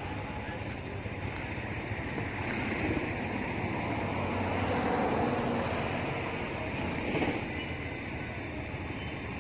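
Steady rumbling, hissing outdoor background noise with a faint high steady tone, swelling slightly in the middle.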